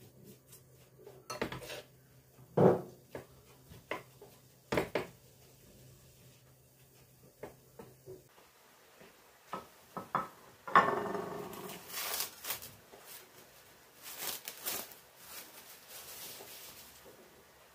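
Dishes and kitchen utensils knocking and clinking: a few separate knocks in the first half, the loudest about three seconds in, then a longer stretch of clattering and scraping in the second half. A low steady hum stops about eight seconds in.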